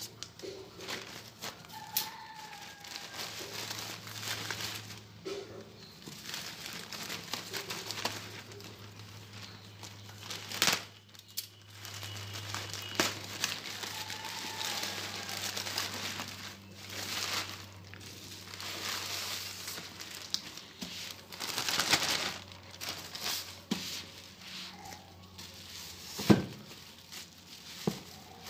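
A plastic courier mailer bag and bubble wrap being handled, rustling and crinkling in irregular bursts, with a few sharper crackles.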